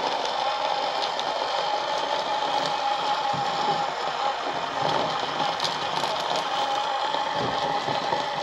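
The small electric motor and gearbox of a 1/24-scale SCX24 mini rock crawler whining steadily as it climbs, with a few light clicks and rattles of the tires and chassis on the rock course.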